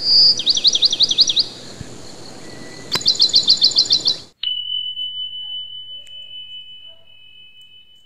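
A songbird chirping in two quick runs of repeated high notes, about eight notes a second. About four seconds in, the sound cuts and a bell is struck once, ringing with a single clear tone that slowly fades.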